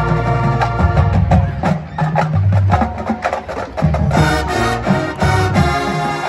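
High school marching band playing its field show: quick percussion strokes over sustained low notes, the whole ensemble growing fuller and brighter about four seconds in.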